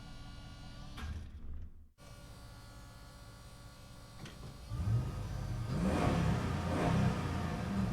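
Motorcycle engine idling, then a sudden drop to silence about two seconds in. A second motorcycle idles and, from about five seconds in, is revved with several throttle blips that rise and fall in pitch.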